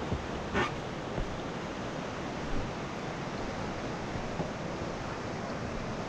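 Whitewater river rushing steadily, with a brief splash about half a second in and a few smaller splashes later.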